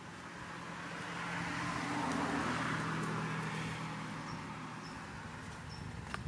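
A motor vehicle passing by, its engine and road noise swelling to a peak about two seconds in and then slowly fading.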